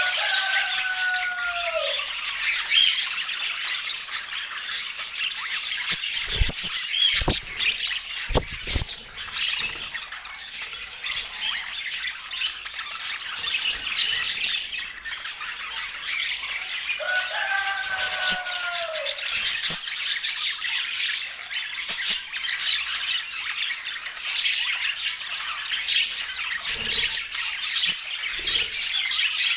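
Budgerigars chattering and chirping continuously. Two falling whistled calls come about half a second in and again about seventeen seconds in, and a few short low thumps fall between about six and nine seconds in.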